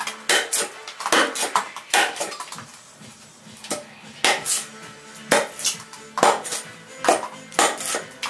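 Sharp, irregular knocks and clinks of a large fixed-blade knife striking during a cutting test, about twenty in quick succession with a short lull about three seconds in. Faint background music runs underneath.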